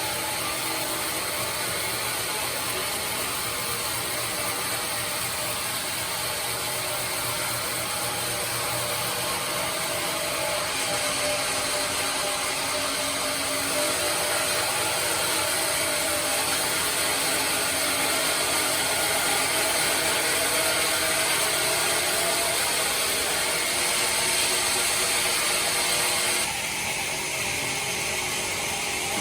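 Band sawmill running steadily as its blade cuts through teak wood, a dense, even machine noise. It grows a little louder through the middle and drops abruptly near the end.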